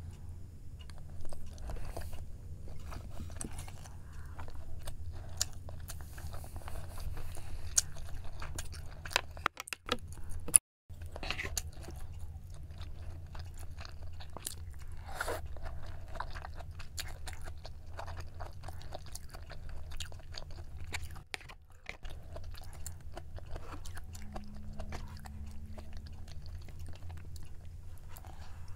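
Close-miked chewing and mouth sounds of someone eating jjimdak, Korean braised chicken with glass noodles: many short sharp clicks over a low steady hum, broken by a brief dropout about ten seconds in.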